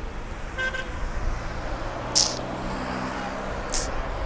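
Road traffic running past, with a short car-horn toot about half a second in and a vehicle engine humming through the middle. Two brief sharp hisses come about two and four seconds in.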